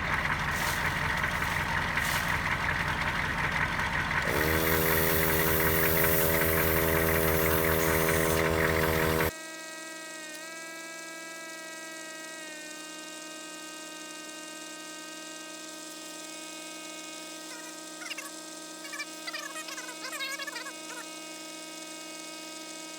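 Pittsburgh 150 PSI air compressor running beside an idling truck engine: about four seconds in the compressor motor starts, its pitch rising briefly to a steady whine, with a high hiss of air. About nine seconds in the sound cuts abruptly to a quieter steady hum of several tones.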